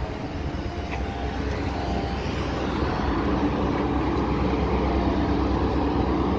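A motor vehicle's engine running steadily: a low drone that grows louder about two seconds in and then holds.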